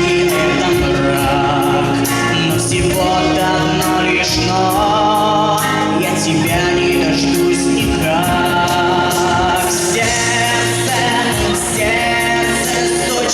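A young male singer performing a pop song to musical accompaniment with a steady beat.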